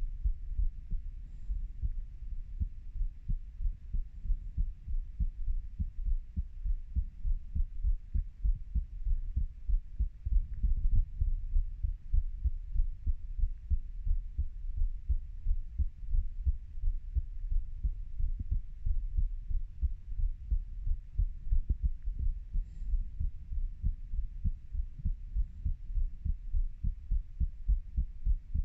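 A 30-year-old adult's heartbeat, recorded close up: a steady, even run of low, dull beats repeating without a break.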